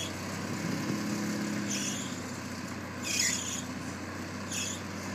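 Mini excavator's engine running steadily while it digs, with three short high-pitched hisses about 2, 3 and 4.5 seconds in.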